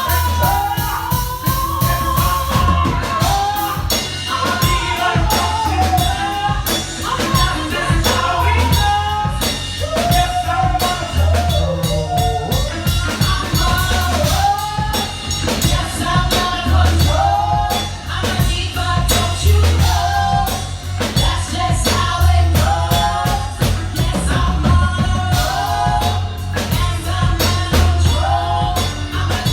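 Live R&B band playing with a drum kit and bass, and a woman singing over it, with long held and bending notes.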